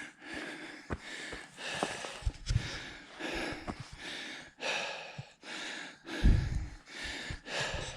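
A man breathing hard from the exertion of hiking up a steep trail, heavy in-and-out breaths about once a second. A short low rumble on the microphone about six seconds in.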